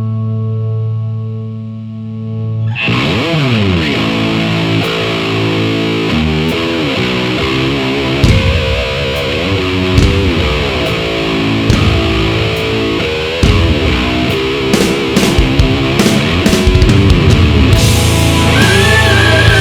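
Heavy rock music: a held distorted electric guitar note, then about three seconds in the full band comes in with drums and distorted guitar riffing.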